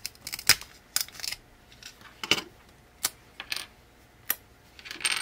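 Small printed circuit boards snapped apart by hand at their breakaway tabs: about eight separate sharp clicks and snaps, spread irregularly, with pieces set down on a wooden tabletop.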